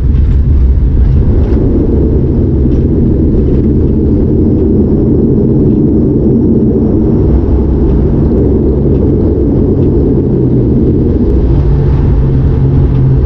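Cabin noise of an ATR turboprop rolling along the runway just after landing: its engines and propellers make a loud, steady rumble. A low hum grows stronger near the end.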